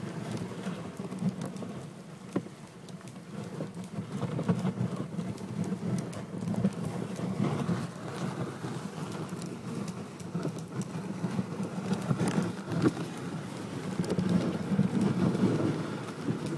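Reindeer-drawn sleigh moving over a snow-packed forest trail: a continuous, uneven crunching and rustling of runners and hooves in snow, with small knocks and jolts.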